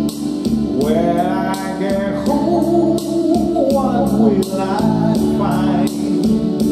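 A man singing through a handheld microphone over a recorded backing track with a steady beat. His voice comes in about a second in with long, wavering held notes.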